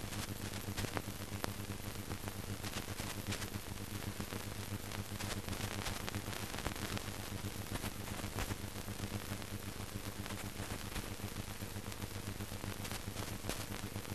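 Steady hiss and a low hum with frequent small crackles: the surface noise of an old optical film soundtrack, with no distinct sound from the procession itself.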